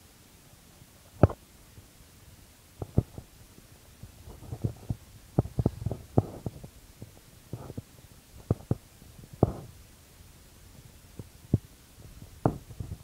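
Irregular dull thumps and knocks from a hand-held iPod touch camera rig being handled and moved around, clustered in the middle with a few isolated knocks near the start and end.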